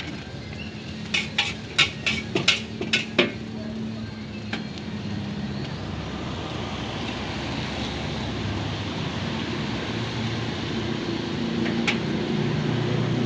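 Metal spatula clanging against a wok while stir-frying rice: about eight quick strikes within two seconds a second in, one more shortly after, and a single one near the end, over a steady noisy background.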